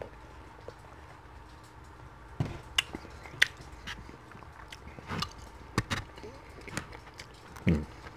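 Close-up eating sounds: a scattered string of sharp clicks and taps from a plastic fork scooping shawarma and rice in a styrofoam takeout container, starting about two and a half seconds in.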